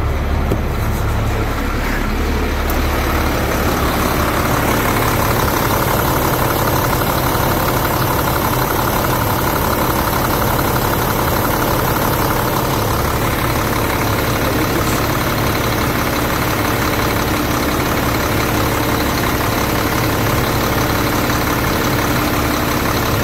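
2004 GMC C7500 truck engine idling steadily, heard up close in the open engine bay, with the belt-driven air-conditioning compressor engaged and spinning.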